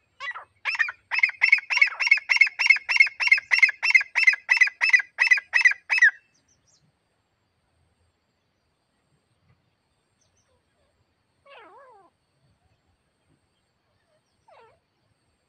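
Grey francolin (titar) calling: a fast series of loud, harsh repeated notes, about three a second, for about six seconds before stopping. Two faint short calls follow later.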